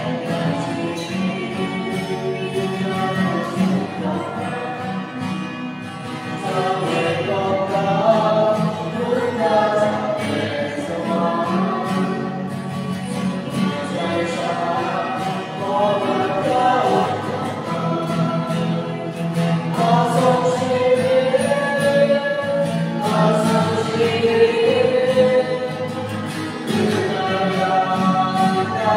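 A choir singing a hymn during communion, several voices together in slow, sustained phrases.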